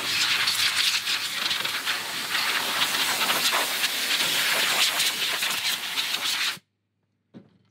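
Compressed-air blow gun hissing in one long blast as it blows debris off the top of a plastic fuel tank, stopping suddenly about six and a half seconds in.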